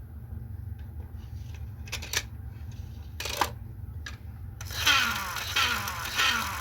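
Plastic toy track parts clicking a few times, then a louder plastic scraping rattle that repeats about every two-thirds of a second, over a steady low hum.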